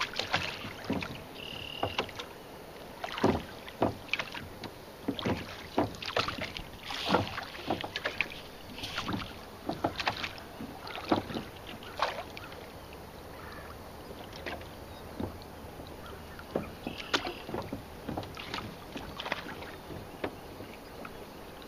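Boat being rowed: oars dipping and pulling through the water, with irregular splashes and knocks, denser in the first half, and a little wind on the microphone.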